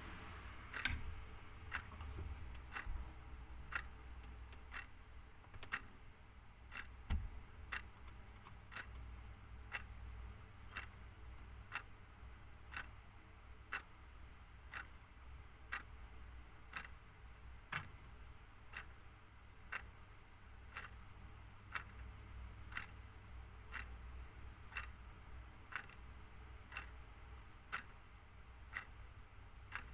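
Clock ticking steadily, about one tick a second, over a faint low hum, with a soft low thump about seven seconds in.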